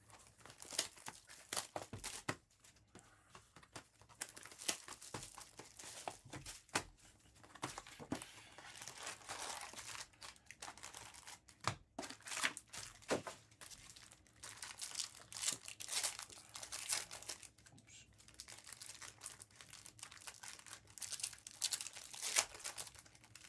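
Trading card pack wrappers being torn open and crinkled by hand, with irregular crackling and sharp crinkles throughout.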